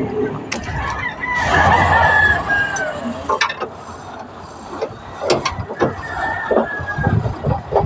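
A rooster crowing twice, a long held call about a second and a half in and a fainter one near the end, among scattered sharp knocks and clanks.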